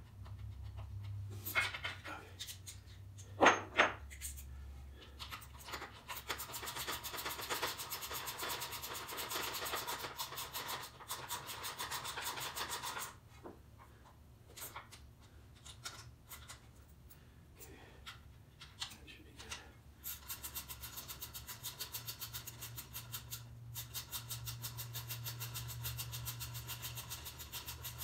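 Ratchet wrench clicking in two long runs of rapid, even clicks while the bolts holding an outboard's lower unit to its midsection are tightened, with a couple of sharp knocks a few seconds in.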